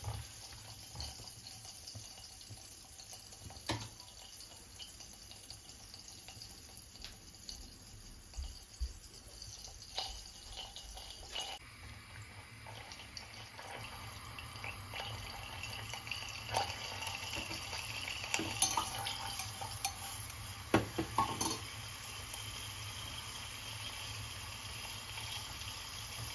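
Chopped green peppers simmering in a shallow layer of water in a non-stick pan: a steady bubbling that grows louder about halfway through as the boil picks up. A silicone spatula clicks against the pan now and then.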